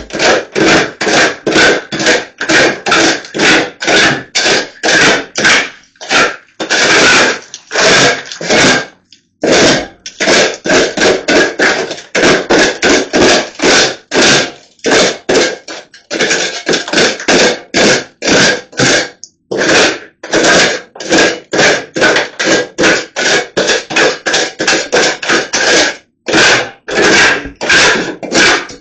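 Drywall knife scraping rapidly back and forth over joint compound on a wall, about three loud strokes a second with a few short pauses.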